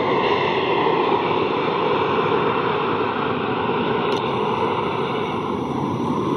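Cessna Citation CJ3 business jet's twin Williams FJ44-3A turbofans heard as the jet climbs away after takeoff: a steady rushing jet noise whose tone slowly shifts.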